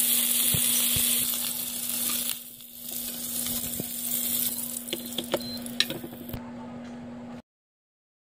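Bone-in steaks sizzling in hot oil in a frying pan, a dense steady hiss over a low steady hum. A few sharp clicks come about five to six seconds in, and the sound cuts off suddenly near the end.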